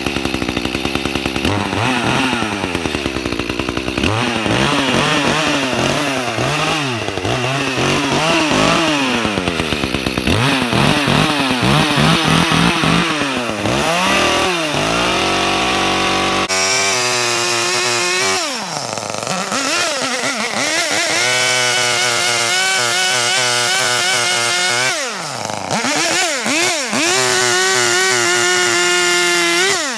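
Two-stroke chainsaw revving up and down again and again, its pitch rising and falling with each blip of the throttle. Near the end it is held at a high steady pitch as the chain cuts into a fallen trunk.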